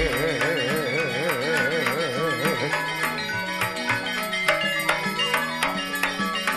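Madurese gending music: a traditional ensemble with busy, even percussion strikes, and a wavering melody line that holds for the first two or three seconds and then drops out.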